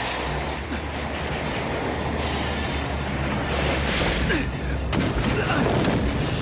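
Anime fight soundtrack: music over a continuous low rumble, with sharp crashes of splintering wooden floorboards as they are smashed open.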